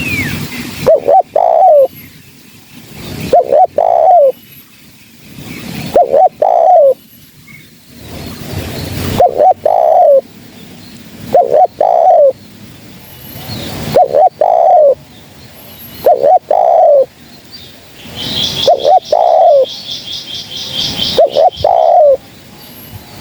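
Spotted dove (terkukur) cooing over and over, each phrase a couple of short notes and a longer falling coo, about every two and a half seconds. Near the end a smaller bird chirps rapidly and high in the background.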